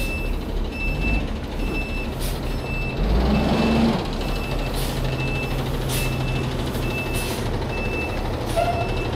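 Box truck's reversing alarm beeping steadily, a little more than one beep a second, over its idling engine, which revs briefly about three seconds in. A few short hisses are heard.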